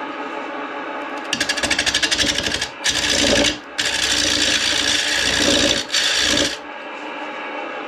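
Bowl gouge cutting the outside of a black walnut bowl spinning on a midi-lathe: a pulsing cut about a second in, then two longer steady cuts with a short break between, stopping after about six and a half seconds. The lathe's motor hum runs underneath.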